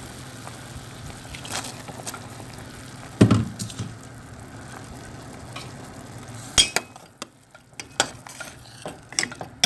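Pot of chicken corn soup simmering with a steady hiss. There is one low knock about three seconds in, then several sharp clinks of a utensil against the metal pot in the last three seconds.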